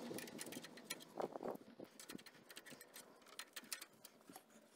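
Small metallic clicks and clinks from a coil-spring compressor being tightened with a ring spanner on a car's front coil spring, with a couple of louder clinks about a second in.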